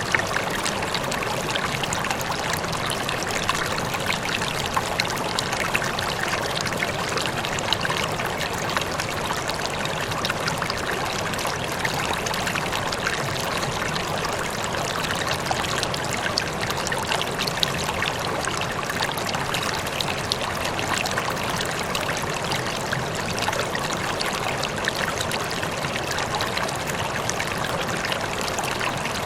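Running water flowing steadily, with a dense patter of small splashes and trickles.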